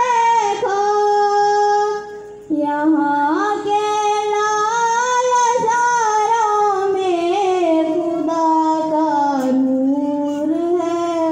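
A girl singing an Urdu hamd solo, drawing out long held notes that glide slowly in pitch, with a short breath about two seconds in.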